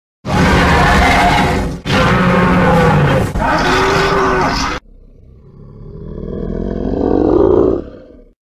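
Monster-roar sound effects dubbed over the footage. Three loud growling roars run back to back in the first half. A lower roar then swells to a peak and cuts off just before the end.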